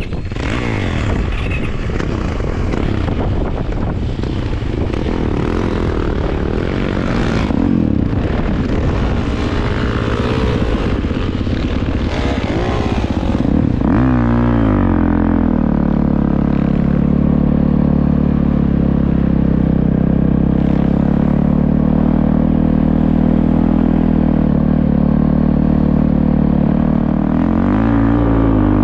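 Motorcycle engine running with varying revs under a rushing noise. About halfway through the revs drop sharply and it settles into a steady idle. There is a brief blip of the throttle near the end.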